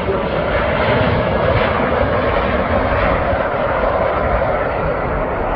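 Airliner engines running with a steady roar, with wind buffeting the microphone.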